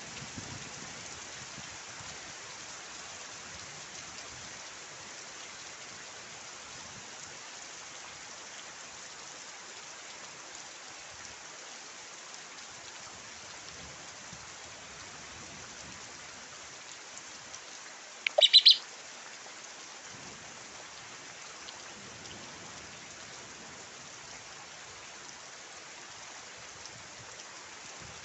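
Steady rain falling, an even hiss. About two-thirds of the way through, a bird gives one brief, loud call of a few quick notes.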